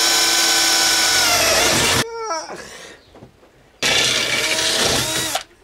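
Bosch cordless drill boring into a metal rail in two bursts. The motor runs for about two seconds, its pitch sagging under load, then winds down. After a pause of about two seconds it runs again for about a second and a half and spins down.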